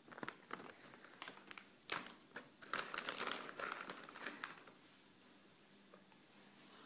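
A pet chewing a dried banana-and-chicken wrap treat: irregular crunching and crackling that eases off after about four and a half seconds.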